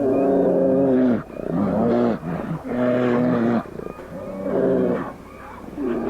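Brown bear growling, a series of about five long pitched growls with short breaks between them.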